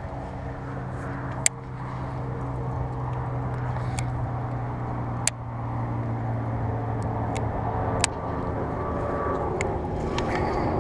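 A steady low motor hum, with about half a dozen sharp clicks at uneven gaps from handling the baitcasting reel during a jerkbait retrieve.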